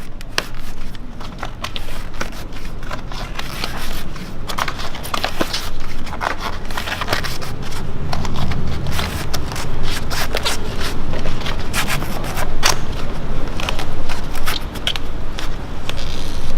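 Rubber bicycle tyre bead scraping, creaking and clicking against the wheel rim as it is pinched and pushed back onto the rim by hand, in irregular short bursts.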